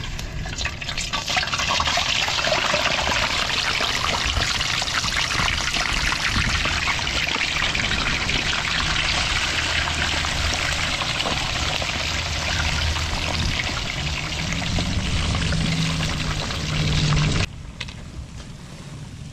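Whole perch deep-frying in hot oil in a wok, a dense steady sizzle and crackle that swells about a second after the fish goes in and drops off sharply near the end.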